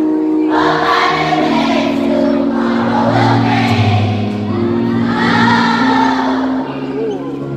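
Children's choir singing a gospel song over a backing track of sustained chords.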